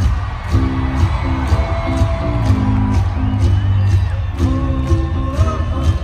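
Live hard rock band playing at full volume: a heavy guitar and bass riff over a steady drum beat, with cymbal hits about twice a second.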